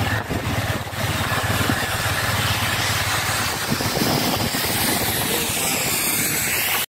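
Motorcycle engine running steadily while riding, with a rushing wind and road noise over it. The sound cuts off suddenly near the end.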